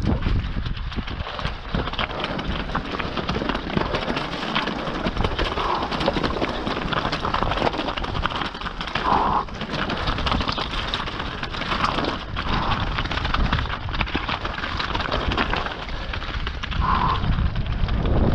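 Mountain bike rattling at speed down loose scree: a continuous clatter of tyres crunching and bouncing over rock, made of many small sharp knocks.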